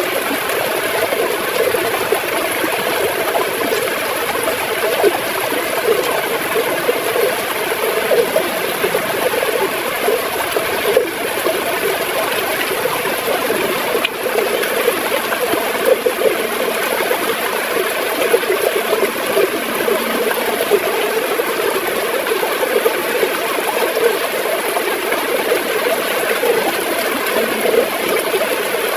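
River water gurgling as it flows over rocks, a steady, busy churn.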